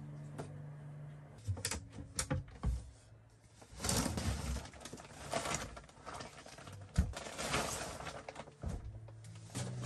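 Handling sounds on a bed: a blanket rustling and a few light clicks, then a louder rustle about four seconds in as an overhead cabinet door is swung open and things inside are handled. A single sharp knock comes about seven seconds in.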